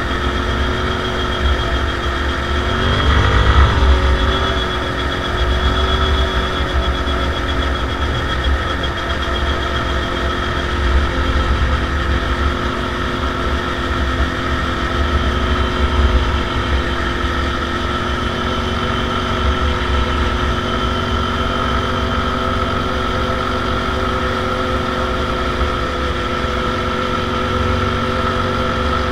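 Linhai ATV engine running steadily while riding along a road at a constant speed. About three seconds in, the engine note briefly rises and wavers before settling again.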